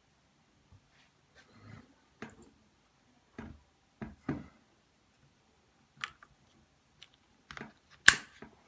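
Handling noise from a phone mount being screwed onto a tripod head: scattered light clicks, knocks and brief scrapes, with one sharp, loud click near the end.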